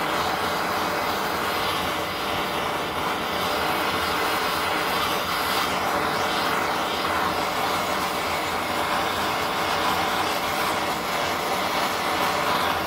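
Handheld propane torch burning with a steady hiss of flame while it is played over pineapple rings to caramelize their sugar.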